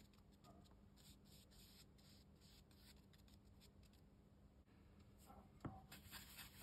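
Near silence: faint scratching of a watercolour brush on cotton rag paper, over a low steady hum, with a few slightly louder light ticks and rustles near the end.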